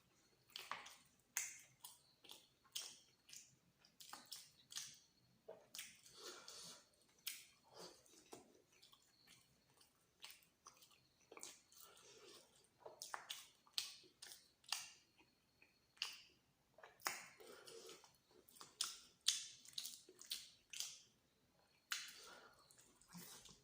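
A person chewing luchi and spicy egg masala close to the microphone: a steady run of irregular sharp mouth clicks and smacks, a few a second.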